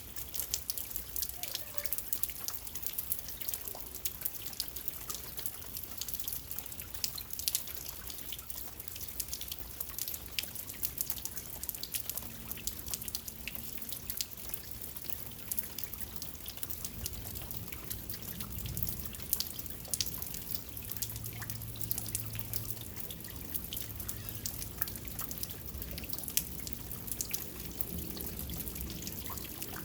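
Rain falling at night, heard as a steady wash with many separate drops and drips striking close by. A faint low hum sits underneath from about halfway through.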